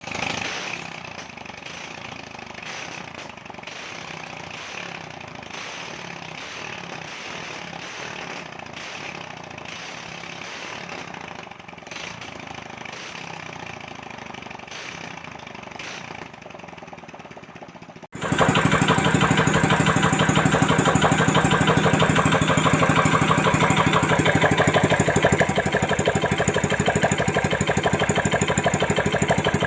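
Ketinting longtail-boat engine running fast and steady, a dense rapid firing beat that comes in abruptly about two-thirds of the way through. Before it, quieter mixed noise with scattered clicks and knocks.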